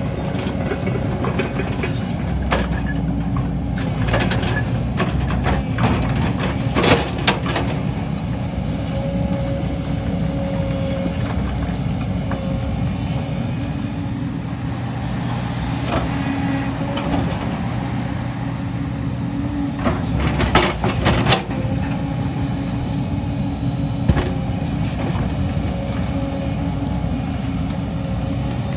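Excavator's diesel engine running steadily under load, with a few sharp metallic clanks from the machine's bucket and tracks, the loudest about seven seconds in and a cluster around twenty-one seconds in.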